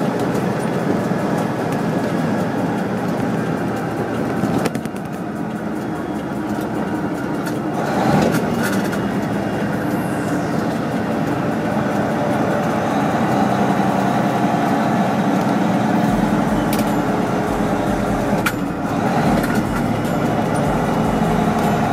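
A semi truck's engine and road noise, heard from inside the cab while driving: a steady drone whose note shifts a few times.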